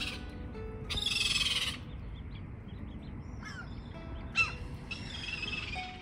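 Gulls calling: a harsh, drawn-out cry about a second in and another near the end, with small birds chirping between.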